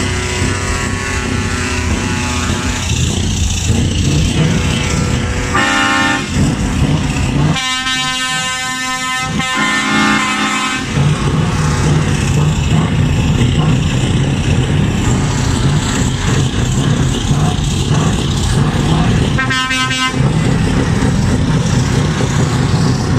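Truck air horns sounding in several blasts, the longest lasting about two seconds, over the steady rumble of idling truck diesel engines.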